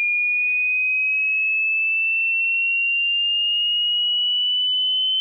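Simulated tinnitus ringing: a single high, pure electronic tone held at even loudness, rising very slowly in pitch.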